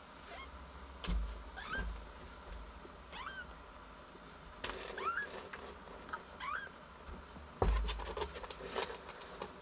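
Two-week-old kittens mewing: thin, high calls that rise in pitch, one after another every second or so. A few dull thumps and bursts of rustling come in between.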